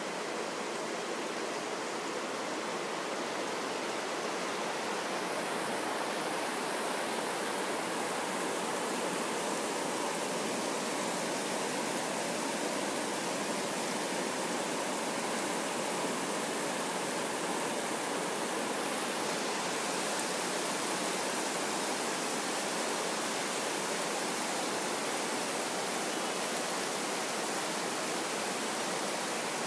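Heavy rain falling steadily, an even hiss of downpour.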